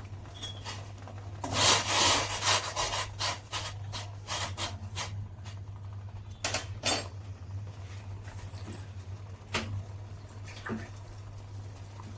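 A pan of spiced water (kadha) boiling on a gas stove: irregular bubbling surges, busiest from about one and a half to three and a half seconds in, over a steady low hum.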